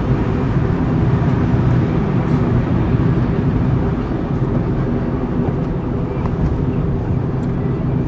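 Steady engine drone and tyre rumble of a car driving along a city road, heard from inside the cabin.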